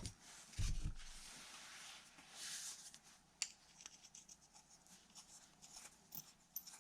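Faint handling noises of small parts and tools on a workbench: a dull thump just after the start, then a soft rustle and a few light, scattered clicks.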